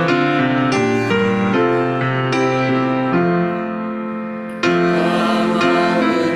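Piano playing slow, sustained chords as a hymn introduction, with a new, fuller chord struck about four and a half seconds in.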